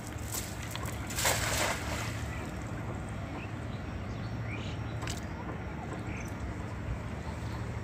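A weighted cast net landing on the river with a brief splash a little over a second in, then steady low background noise with a few faint chirps.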